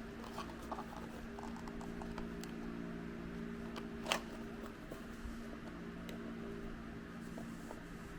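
Light scattered clicks and taps of small objects being handled, with one sharper click about four seconds in, over a steady low hum.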